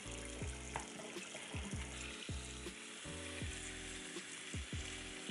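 Kitchen faucet running, its stream of water pouring into a plastic bin as a steady hiss. Background music with a steady beat plays along.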